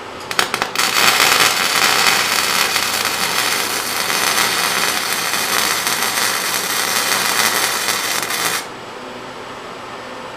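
Small wire-feed welder's arc, stuttering a few times on striking and then crackling steadily for about eight seconds before cutting off suddenly. The welder has just been turned down and its settings tweaked. A fan hums underneath.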